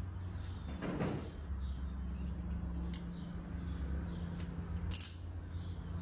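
A few separate knocks and clunks, the sharpest about a second in and around three, four and five seconds in, over a steady low hum.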